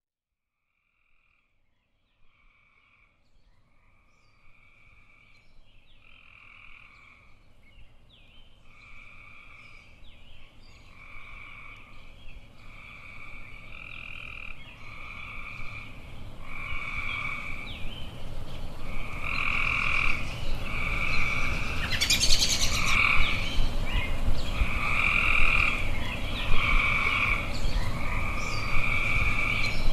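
Frogs calling in a chorus: calls about a second long repeat roughly every second and a half, fading in from silence over the first twenty seconds above a low steady background noise. A brief hiss comes about 22 seconds in.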